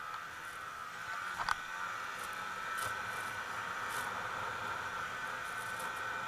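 Snowmobile engine running at a steady cruising pace as the sled travels a packed snow trail, with a sharp knock about a second and a half in.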